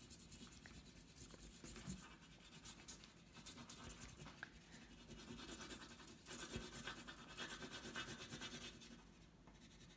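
Oil pastel scratching across paper in short, uneven strokes as colour is laid down; faint, easing off near the end.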